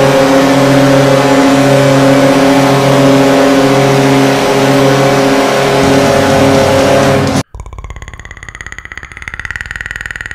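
Hockey arena goal horn blowing one long, loud blast of several held tones over a roaring crowd, cutting off abruptly about seven seconds in. A much quieter sound effect with a high held tone follows.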